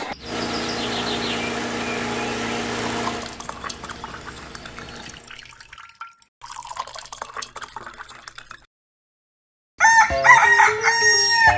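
A steady mechanical hum that fades out after about three seconds, then, after a second of silence, a rooster crowing loudly near the end.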